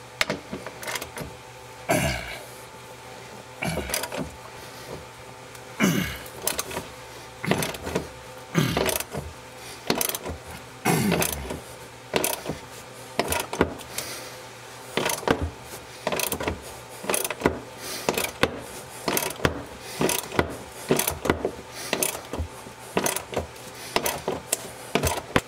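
Hand ratchet and socket working a tight seat-mounting bolt: irregular bursts of ratchet clicking and knocks, roughly every second, over a faint steady hum.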